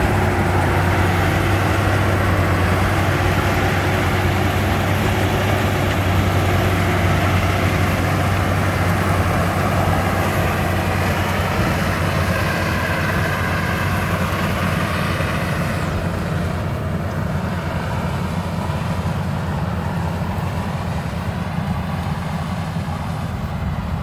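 Bimo combine harvester's engine running steadily with a strong low hum and a hiss of threshing machinery over it; about two-thirds of the way through, the higher hiss drops away and the sound eases a little.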